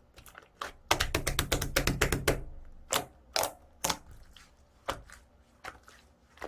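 Foam-ball slime being squished and poked by hand, crackling with sharp clicks and pops: a quick run of clicks about a second in, then a few single pops.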